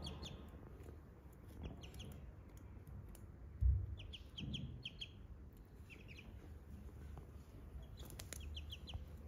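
Ducklings peeping in short runs of quick high chirps with pauses between. A single dull thump, the loudest sound, comes a few seconds in.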